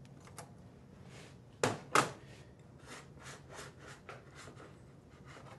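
Ceramic ramekin and small knife knocking and scraping against a plate as a bread pudding is turned out of its ramekin: two louder knocks a little under two seconds in, then a run of light taps and scrapes.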